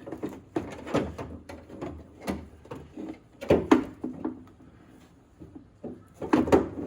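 Irregular clicks and knocks of hands fitting the window glass onto its regulator inside a car door, with louder knocks about a second in, midway and near the end.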